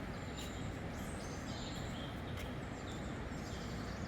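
Birds chirping and trilling in quick, high notes over a steady background rush.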